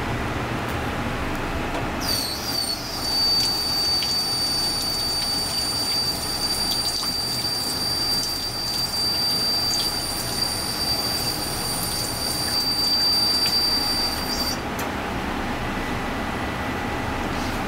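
Kitchen faucet turned on about two seconds in, water running into a stainless steel sink with a steady high-pitched whistle from the tap; the pitch wavers briefly as it opens. Water and whistle cut off suddenly near the end, leaving a steady low hum.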